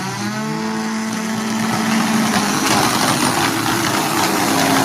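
Turbocharged race car engine revved up and then held at a steady high rpm for a burnout. A broad rushing noise builds over it from about halfway through and grows louder.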